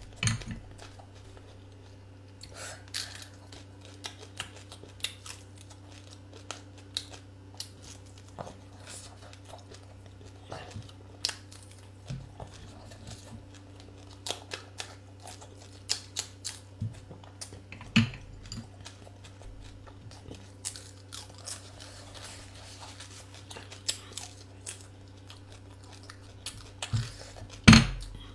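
A person eating close to the microphone: scattered chewing, crunching and tearing sounds, with a louder clack near the end, over a steady low hum.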